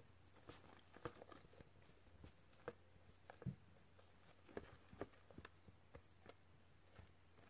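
Homemade slime being mixed by hand with saline solution, giving faint, irregular sticky clicks and squelches about one or two a second.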